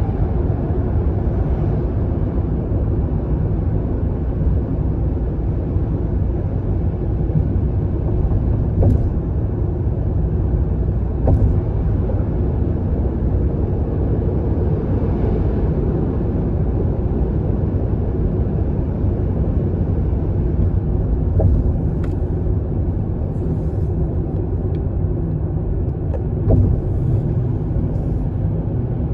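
Steady low rumble of a car driving through a long highway tunnel, heard from inside the cabin, with a few faint clicks.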